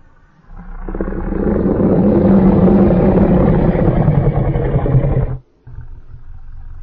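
Custom-made Godzilla roar sound effect: one long, rough monster roar that swells in over about a second, holds loud, and cuts off suddenly about five seconds in. A quieter, lower growl follows right after.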